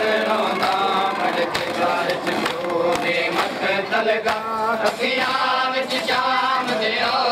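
Crowd of men chanting a Muharram mourning lament (noha) together, with sharp slaps of hands striking chests (matam) cutting through the chant a little under once a second.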